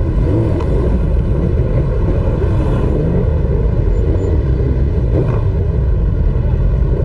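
Motorcycle riding along, its engine running steadily under loud, rumbling wind noise, with the engine pitch wavering slightly.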